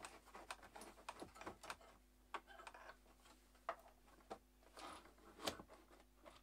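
Irregular small clicks, taps and light scrapes of a router-table fence being handled and refitted, with a sharper knock about five and a half seconds in.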